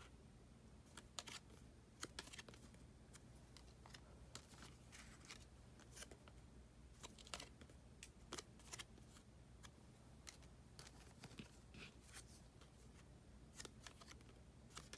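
Faint, irregular clicks and slides of a small stack of collector cards being handled, each card drawn off the front and slipped to the back, over a steady low hum.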